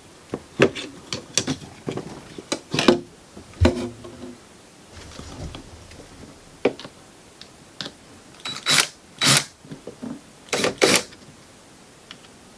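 Scattered clicks and knocks of hands and tools working a small plastic satellite-dish controller loose from its wall panel, with a few louder sharp clacks near the end.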